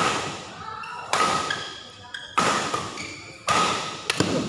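Badminton rackets striking a shuttlecock in a doubles rally: five sharp hits about a second apart, each echoing in a large hall.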